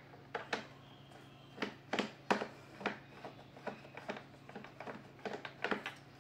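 Irregular light clicks and taps, about two or three a second, of a screwdriver working on screws in the plastic housing of a Kärcher WD 3 wet-and-dry vacuum cleaner during disassembly.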